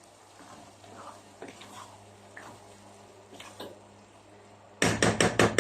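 Quiet kitchen with a faint steady hum and a few soft small clinks. Near the end comes a quick run of sharp, loud clattering taps, about seven or eight a second, like a utensil knocking against cookware.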